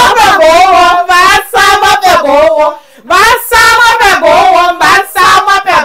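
Voices singing a loud celebratory song with drawn-out notes, pausing briefly a little before halfway through.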